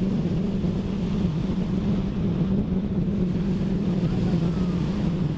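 Steady rumble of wind on the microphone over ocean surf on a beach.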